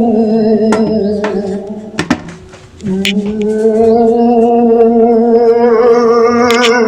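A wordless voice holding long wavering notes, an eerie hum or moan. The first note fades out about two seconds in, and a second steady note starts just under three seconds in, with a few sharp clicks over it.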